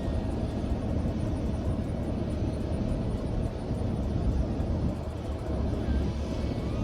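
Engine running steadily with a low rumble, with a faint high ticking about four times a second.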